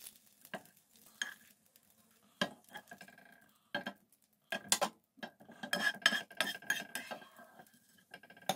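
Metal tongs and then a spoon clicking and scraping against a nonstick frying pan while fried stuffed banana peppers and leftover egg bits are lifted out. Separate clicks come first, and denser scraping follows from about five seconds in.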